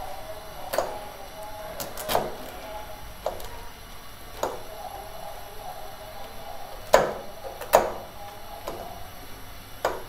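Metal fork tapping and scraping against a nonstick frying pan while breaking up a block of instant noodles in water: a string of sharp, irregular clinks, the two loudest close together about seven seconds in.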